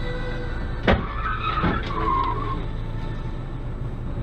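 Tyres screeching briefly as a car skids, after a sharp knock about a second in, over a steady low hum of engine and road noise heard from inside a car.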